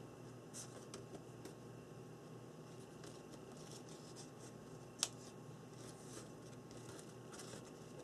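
Faint rustling and tapping of small paper letter tiles being handled and laid out on a journal page, with scattered light clicks and one sharper click about five seconds in.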